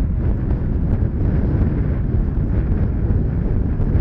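Steady low rumble of jet airliner engines, mixed with wind buffeting the microphone.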